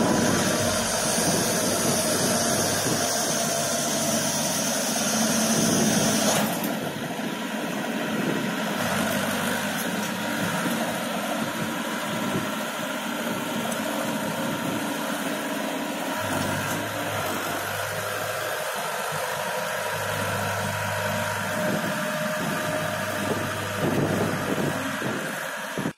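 Diesel engine of a 4x4 self-propelled articulated boom lift running steadily as the machine moves, a little quieter from about six seconds in.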